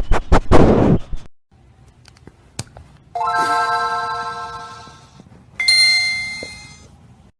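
A loud burst of rapid knocks and noise is cut off about a second in. Then come two doorbell chime notes, each struck and fading away: a lower one about three seconds in and a higher one about two and a half seconds later.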